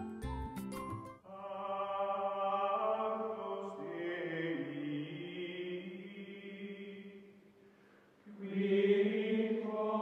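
Outro music: a short beat with struck notes for about a second, then sustained choral chanting on long held chords. The chanting fades away around the eighth second, and a second held chord comes in about a second later.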